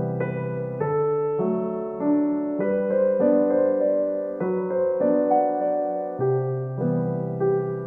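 Slow, gentle piano music: sustained notes and chords changing about every half second to second, with no other sound.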